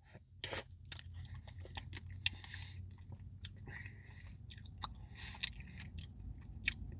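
A person eating a Dairy Queen brownie Blizzard close to the microphone: soft chewing and wet mouth smacks, with a handful of sharp clicks scattered through.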